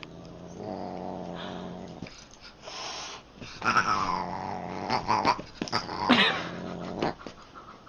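A domestic cat growling low and steadily, then breaking into several loud yowls with the pitch bending up and down, the biggest about halfway through and another near the end.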